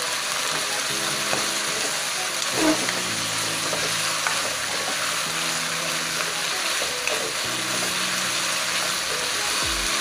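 Shrimp and vegetables sizzling steadily in a hot nonstick wok while a spatula stirs and tosses them, with a few light knocks of the spatula against the pan.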